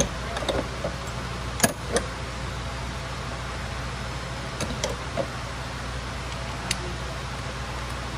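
Steady low hum with a handful of sharp clicks and taps scattered through it, the loudest a little under two seconds in.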